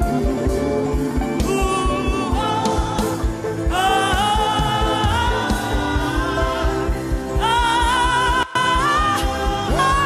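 Gospel praise music with a steady, quick bass beat and sung phrases of long, wavering held notes.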